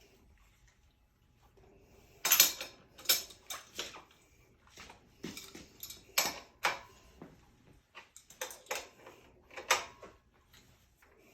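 Irregular sharp metallic clinks and knocks of hand tools working on a bicycle bottom bracket bearing puller, about a dozen strikes with the loudest about two seconds in.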